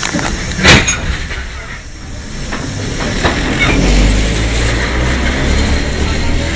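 CPTM rail vehicle ER 4429 rumbling past on the track. A brief, loud hiss-like burst comes about a second in, and a low engine rumble builds from about two and a half seconds.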